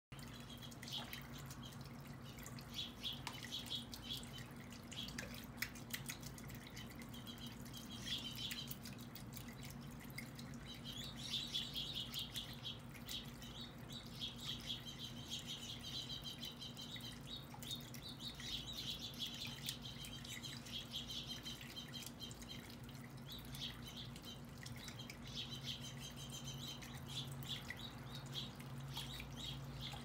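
Small birds chirping in repeated bouts over the splash and drip of a small tabletop fountain's bubbling jet, with a steady low hum underneath.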